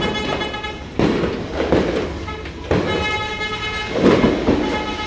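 New Year's Eve din: firecrackers banging about once a second, over a steady blaring of horns.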